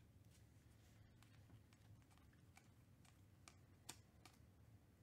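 Faint clicks and snaps of glossy Panini Mosaic basketball cards as a stack is picked up and thumbed through one card at a time, with a sharper click about four seconds in.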